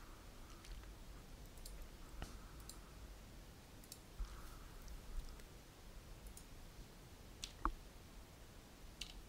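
Faint computer mouse clicks, a dozen or so scattered irregularly, the loudest a little after seven seconds in, over a faint low hum.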